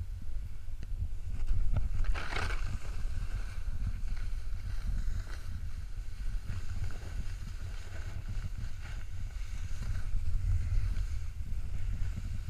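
Wind buffeting the microphone as a rider slides down through powder snow, with the hiss of snow under the rider and a brief louder spray of snow about two seconds in.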